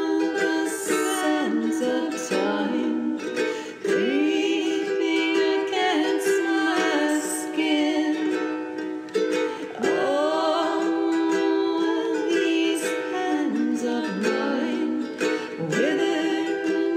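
Background music: a continuous tune whose notes slide up into their pitch every few seconds.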